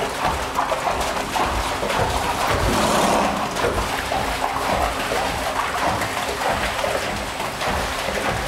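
Water rushing and splashing in an equine water treadmill, a steady wash of noise with irregular low thuds.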